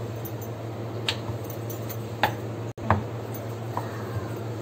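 Wooden rolling pin rolling out soft rice-flour dough on a board, giving about four sharp clicks and knocks over a steady low hum.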